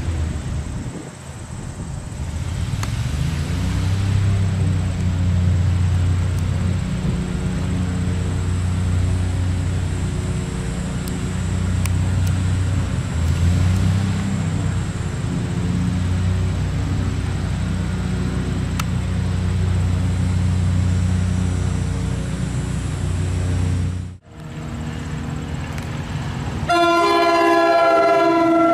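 A steady low engine drone, gliding up and down in pitch a few times. After a break, an NJ Transit ALP46A electric locomotive's multi-tone air horn sounds loudly for about two seconds near the end as the train approaches the grade crossing.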